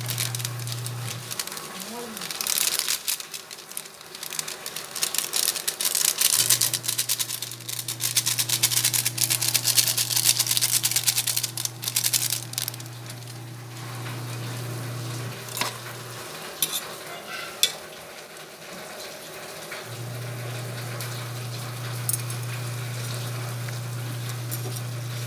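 Laswa vegetable soup boiling in an aluminium stockpot: a dense bubbling crackle, loudest through the first half and quieter after. A steady low hum runs underneath and drops out twice.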